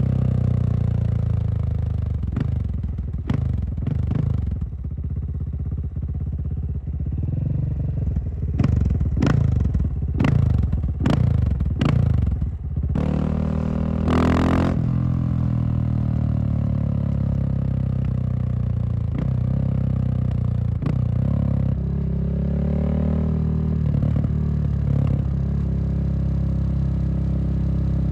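Husqvarna SM610 supermoto's single-cylinder four-stroke engine being revved in a run of quick throttle blips, then held high for a second or two about halfway through before dropping back to a steadier, lower running speed.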